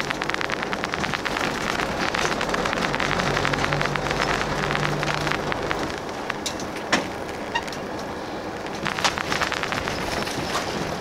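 Limousine coach heard from inside while driving, with engine hum and road noise. The low engine hum drops away about halfway through, as if the coach eases off. A few sharp clicks or rattles follow near the end.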